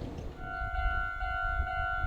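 Japanese level crossing alarm starting up about half a second in: a steady electronic ringing that pulses a little over twice a second, over a low rumble.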